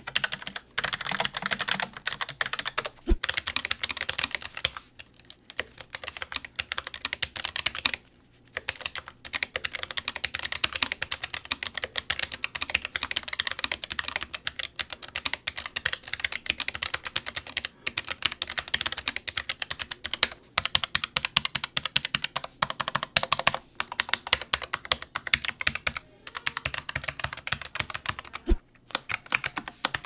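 Fast typing on low-profile mechanical keyboards, one after another: a Logitech MX Mechanical, a Keychron K5 with brown switches, then a ProtoArc K300. The keystrokes clack steadily, with a few brief pauses.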